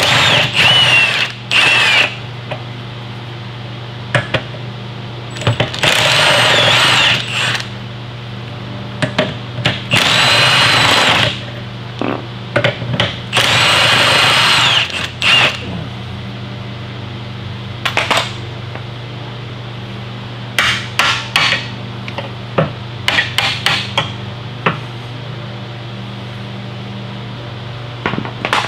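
Impact wrench running in several bursts of one to two seconds, spinning off the fasteners of the high steer arm on a Dana 60 steering knuckle. Short clicks and knocks of parts being handled follow in the second half.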